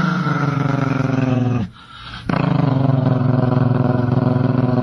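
Chihuahua growling in two long, steady growls, with a short break between them about two seconds in.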